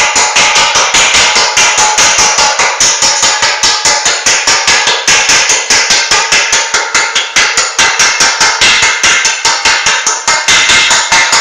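Hammer beating a sheet-iron bumper panel over a wooden forming block, steady rapid blows about four a second, the metal ringing between strikes.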